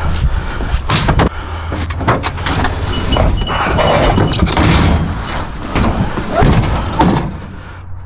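A metal game cart being lifted and pulled off a truck, with repeated clanks, knocks and scraping of metal.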